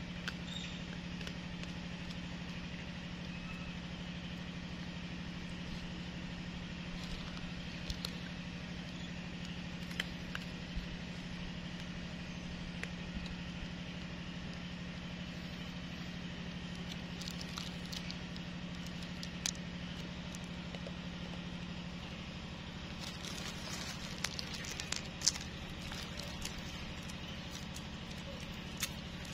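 A steady low mechanical hum, with scattered light clicks and crackles that grow thicker near the end.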